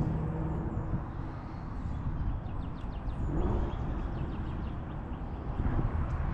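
Steady low rumble of wind on the microphone over flowing river water, with a few faint, quick bird chirps in the middle.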